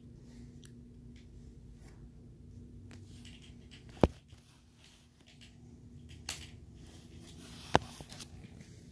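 Two sharp knocks about four seconds apart, with a softer one between them, from the recording phone being handled and turned around, over a faint steady hum.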